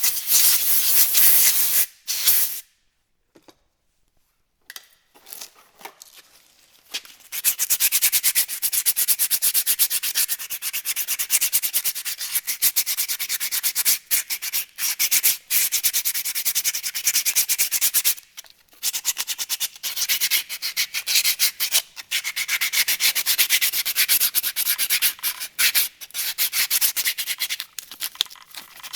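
Rapid, repeated abrasive scrubbing strokes on a drum-brake part, in a high hissing texture. It stops about two seconds in, picks up again a few seconds later, and breaks briefly once more in the middle.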